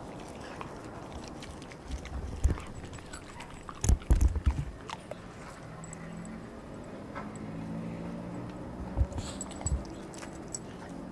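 Dog eating raw meat and organ pieces off a tiled floor: chewing and knocks of food against the tile, loudest in two short bursts about two and four seconds in, with scattered clicks after.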